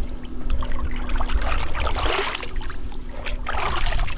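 Water splashing and trickling, in patches about two seconds in and again near the end, over a constant low rumble and a faint steady hum.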